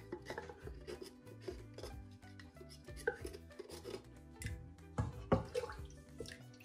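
Wooden spoon scraping condensed milk out of a metal can, a string of short scrapes and knocks, the loudest about five seconds in, over soft background music.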